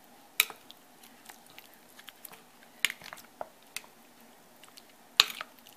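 Wooden and metal spoons stirring and breaking up cooked sticky rice in a wet brown-sugar and coconut-milk mixture in a glass bowl. Soft wet squishing, with a few scattered sharp clicks.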